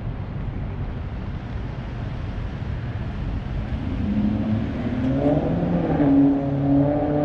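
Street traffic rumble, then a motor vehicle's engine accelerating close by from about four seconds in, getting louder toward the end.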